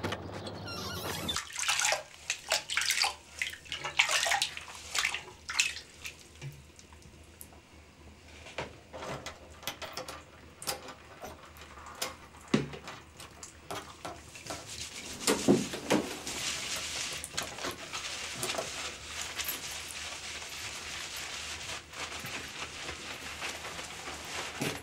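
Water splashing and sloshing in an enamel basin as hair is washed by hand, in sharp irregular splashes with a cluster of louder ones past the middle. In the last third it turns into a steadier wet rustle of hands working lather through hair.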